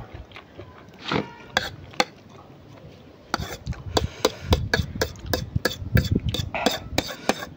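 Close-up eating sounds: a mouthful of noodles slurped and chewed, with a metal fork clicking and scraping on a plate as more noodles are scooped up. The clicks come sparsely at first and then quickly one after another from about the middle on.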